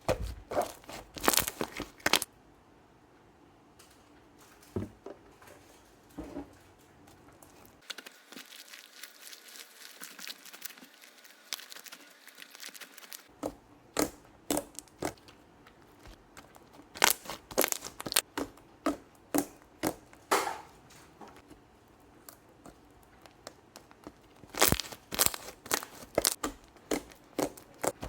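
Clay slime loaded with water beads being squeezed and poked by hand: irregular sharp pops and crackles, some in quick clusters, with a softer stretch of steady hiss about a third of the way in.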